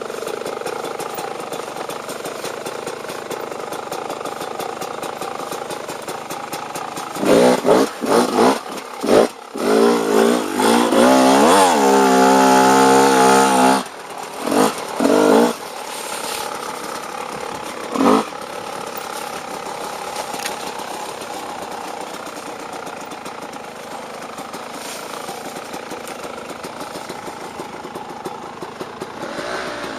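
Off-road dirt bike engine idling, then revved hard in several quick blips and a rise to a held high rev for about two seconds, then a couple more blips before it settles back to idle, with one last short blip.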